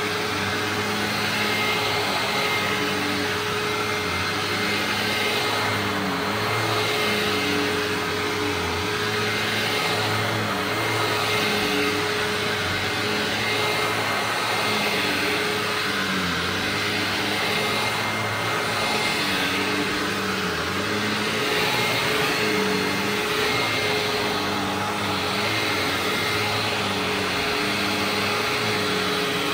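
Hoover WindTunnel Ultra Self-Propelled upright vacuum with a 12-amp motor running steadily, a constant motor whine over a rushing airflow, the sound swelling and easing every few seconds. Its brush-roll belt is due for replacement.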